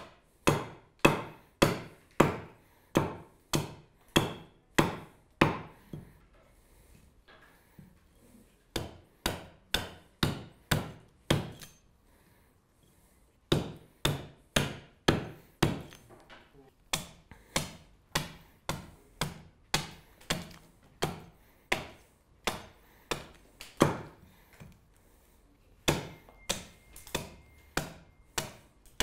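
Small axe hewing an alder spoon blank on a wooden chopping block: a run of sharp chops, a bit under two a second, broken twice by short pauses.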